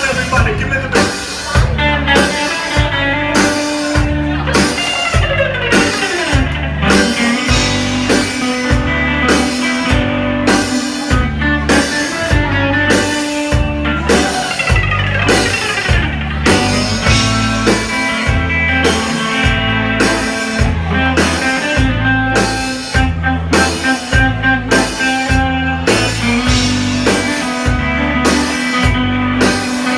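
Live rock band playing: electric guitar over a steady, driving drum-kit beat and held bass notes, with long downward slides in pitch about five and fourteen seconds in.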